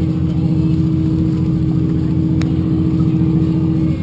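A motor engine running steadily at an even speed, with a steady hum above it.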